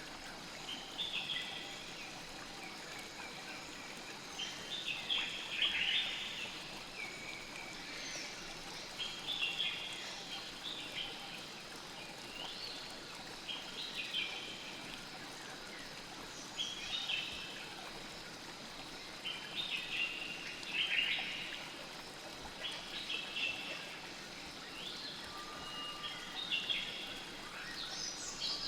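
Forest ambience: birds chirping in short, repeated clusters every second or two over a steady rush of flowing river water.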